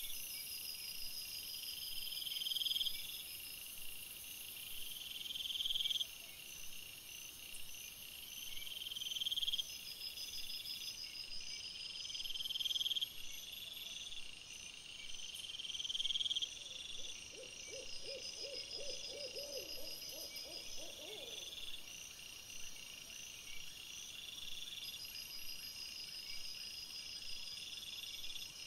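Night insect chorus: a cricket-like buzz that swells and stops every three seconds or so over a steady, higher trill. About two-thirds of the way through, a short run of low, rapidly repeated animal calls.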